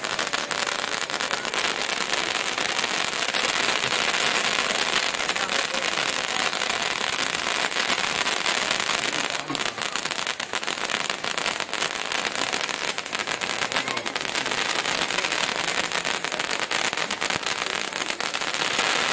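Fireworks going off without a break: a dense, steady crackle of many small rapid bangs.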